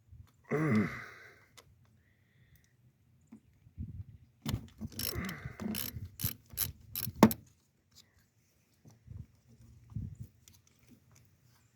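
Ratchet wrench and socket clicking and metal knocking while working a car battery terminal nut, in a run of sharp clicks in the middle. A short pitched sound comes about half a second in.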